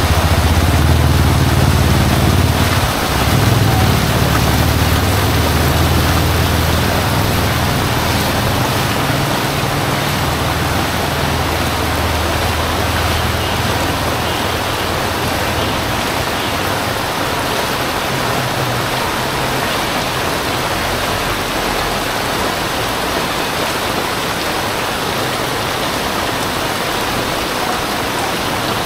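Heavy rain pouring steadily, with a deep low rumble in the first half that fades out about halfway through.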